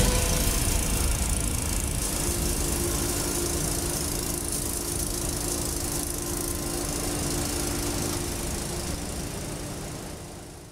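SEPTA AEM-7 electric locomotive approaching with its passenger train: a steady rumble with a steady hum over it, fading out near the end.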